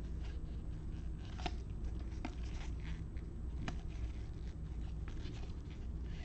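Trading cards being handled and sorted by hand, with soft rustling and a few sharp clicks as cards slap together, over a steady low hum.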